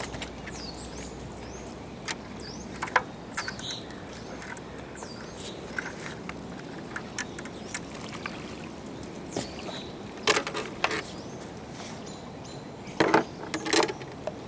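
Outdoor ambience with a few short bird chirps, and scattered clicks and knocks of fishing gear being handled close by, louder in two clusters about ten seconds in and near the end.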